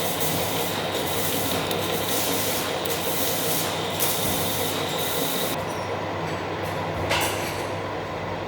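Metal lathe running and cutting a steel cart axle: a steady machine hum under a grainy rasping cutting noise, with a thin high whine through the first half that stops about five and a half seconds in.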